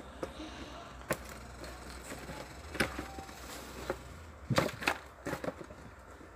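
Handling noise: a few scattered sharp taps and knocks of objects being moved about, the loudest cluster about four and a half to five seconds in.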